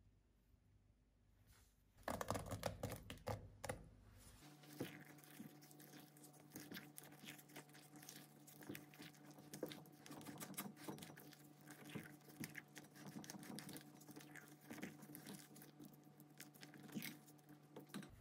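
Silicone spatula stirring and folding thick date-and-walnut batter in a glass bowl: many small, irregular, soft scraping and squelching strokes over a faint steady hum. A brief burst of clattering comes about two seconds in.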